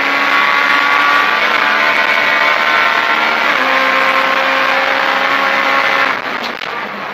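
Rally car engine heard from inside the cabin at high revs under full throttle, with the note stepping down slightly about halfway through as it shifts up a gear. About six seconds in the throttle is lifted and the engine note drops and becomes quieter.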